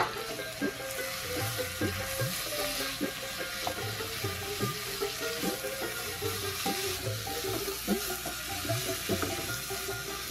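Cubes of mutton fat sizzling in hot oil with onions and spices in a nonstick wok, turned over with a wooden spatula.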